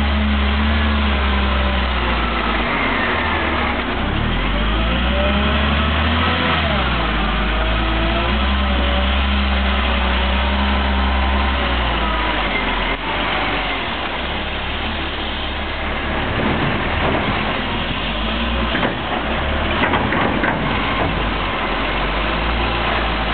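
Volvo L70F wheel loader's six-cylinder diesel engine running under load, its pitch rising and falling as it drives with a full bucket of snow and lifts it high to dump.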